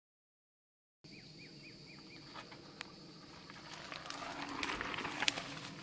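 Sound begins about a second in with a bird giving five quick repeated chirps. A mountain bike then comes down a dirt trail, its tyres crunching over earth and stones with scattered sharp clicks, growing louder as it nears.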